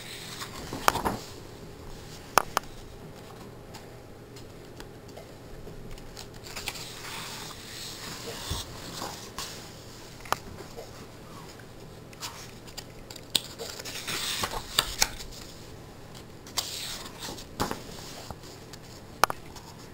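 Pages of a paper colouring book being turned and smoothed flat by hand: paper rustling and sliding in several stretches, with scattered light taps and clicks.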